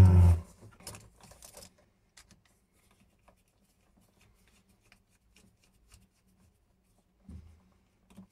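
Faint scattered clicks and small metal ticks of a precision screwdriver working the terminal screws of a Schneider wall socket while the wires and the socket's metal frame are handled. A brief low sound comes at the very start, and a small bump near the end.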